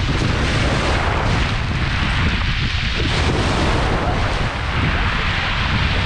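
Small sea waves breaking and washing up a pebble beach in a steady rush of surf, under heavy wind rumble on the microphone.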